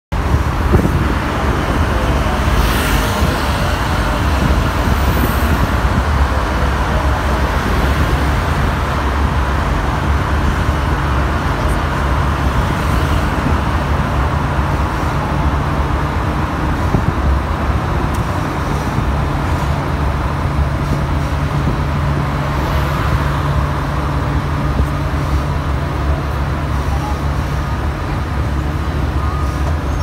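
Road traffic inside a road tunnel, heard from an open-sided vehicle: a steady, loud low rumble of engines and tyres. Two brief louder hisses of passing vehicles, one a few seconds in and another about three quarters of the way through.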